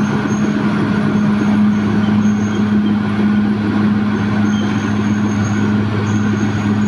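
Caterpillar D6R XL bulldozer's diesel engine running steadily, a constant low drone with no change in pitch.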